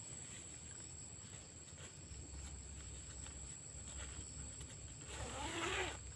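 Night forest ambience: insects keep up a faint, steady high-pitched drone. Near the end comes a short, louder wavering call with several bending pitches.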